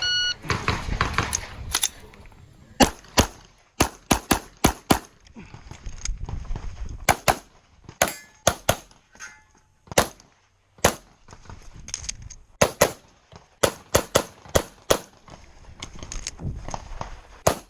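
A shot timer's start beep, then a Glock 34 Gen 5 9mm pistol firing string after string of fast shots, mostly in quick pairs and small groups with short pauses between them.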